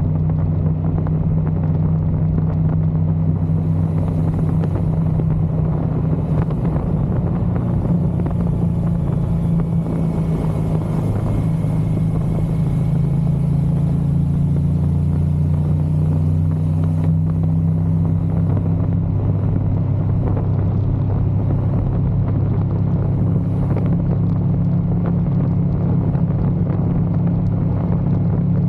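Touring motorcycle's engine running steadily while riding at road speed, with wind and road noise; the engine note shifts slightly a couple of times.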